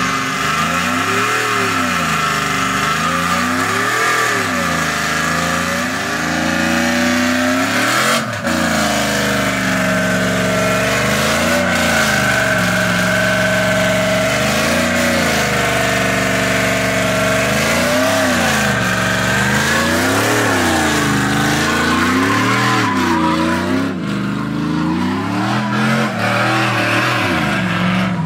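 A pickup truck's engine revving up and down over and over during a burnout, its rear tyres spinning and screeching.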